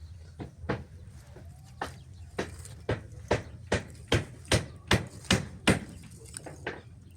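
A run of sharp, evenly spaced blows, about two and a half a second, growing louder before stopping, with a few fainter ones after, over a low steady hum.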